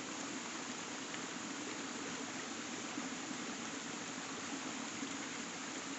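Steady hiss of light rain and of water running down a stone footpath.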